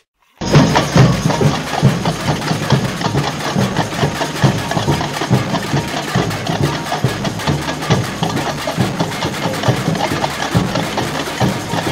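Street percussion band playing: large metal-shelled bass drums (surdos) beat a steady pulse under dense, fast drumming. It cuts in abruptly about half a second in.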